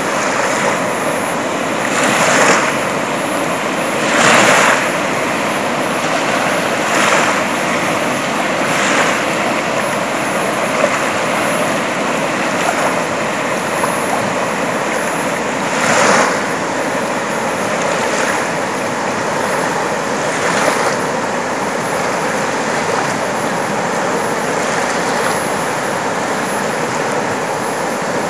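Steady rushing water, with louder surges every few seconds.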